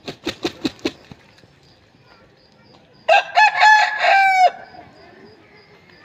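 An Aseel rooster beats its wings rapidly, about seven sharp claps in the first second. About three seconds in it gives one crow of about a second and a half, broken into short notes at first and ending on a longer held note.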